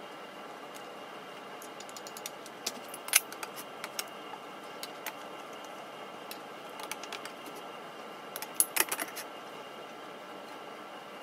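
Serving spoon clinking and scraping against a pot, a skillet and a ceramic bowl as food is dished up: scattered light clicks, a sharp knock about three seconds in and a quick cluster of clinks near nine seconds, over a faint steady hum.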